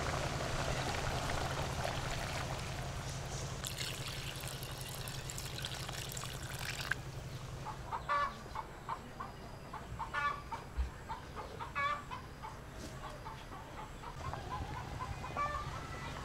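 A pot of curry cooking over a wood fire gives a steady hiss that cuts off suddenly about seven seconds in. Then chickens cluck in short calls, about a dozen of them over the next eight seconds.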